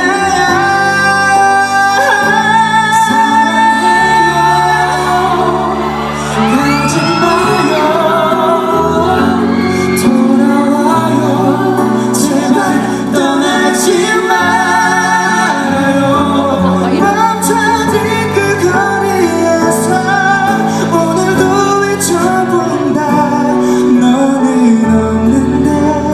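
A pop ballad performed live: male voices singing sustained notes with vibrato over a full instrumental backing track.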